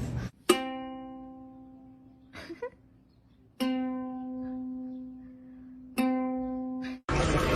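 Three single notes plucked on a string instrument, the same note each time, each ringing out and slowly fading. The plucks come about a second in, midway and near the end, with a few faint soft knocks between the first two. The last note cuts off abruptly.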